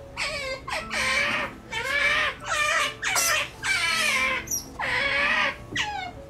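Asian small-clawed otter pups calling: a quick run of about nine or ten high squeaky calls, each falling in pitch, roughly two a second.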